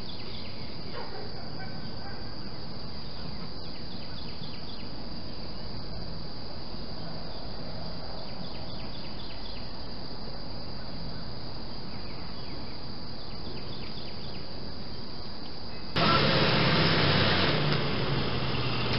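Steady outdoor hiss with insects chirping in short repeated bursts. Near the end the sound cuts abruptly to a louder stretch of vehicle noise.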